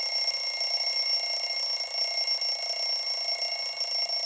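Smartphone alarm ringing with a steady, high-pitched electronic tone: the early-morning wake-up alarm.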